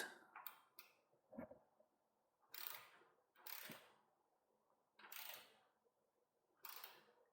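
Park Tool torque wrench, set to about 5 newton metres, tightening bolts: four short, faint ratcheting strokes roughly a second and a half apart, with a very quiet click.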